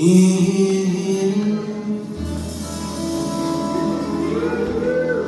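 Closing bars of a live country band song: pedal steel, upright bass and guitars holding and ringing out the final chords, with a low bass note coming in about two seconds in.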